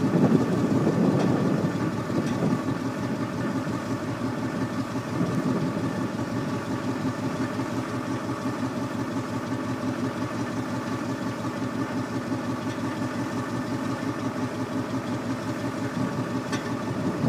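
Engine of an orange cab-over yard tractor running steadily with an even pulse, a little louder in the first couple of seconds.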